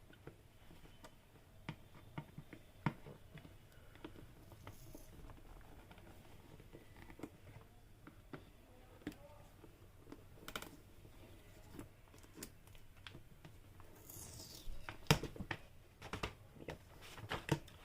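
Cardboard product packaging being handled and opened: scattered faint clicks and scrapes, then a short sliding rasp and a few louder knocks in the last few seconds.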